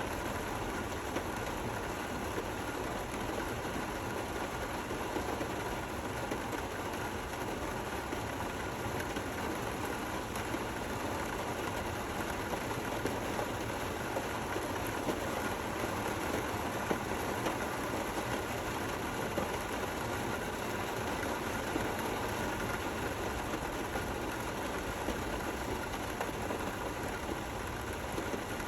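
Steady gentle rain falling, an even hiss with small scattered spikes of individual drops.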